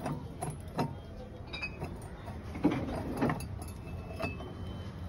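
Brown glass beer bottle clinking and knocking against a steel bottle-cutting jig as it is set in and turned by hand: scattered sharp clinks, some with a brief glassy ring, over a low steady rumble.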